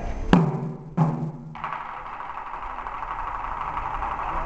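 Two loud taiko drum strikes about two-thirds of a second apart, each ringing out low, followed by a steady hiss.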